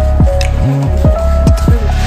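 Background electronic music with a heavy bass and quick downward-sliding synth notes repeating several times a second.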